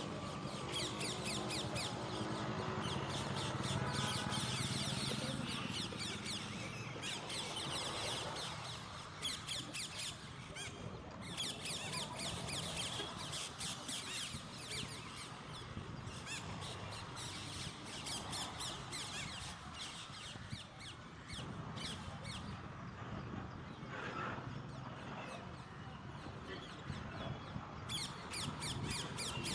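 A flock of parrots calling: dense, rapid, high-pitched chirps from many birds at once, with a few brief lulls.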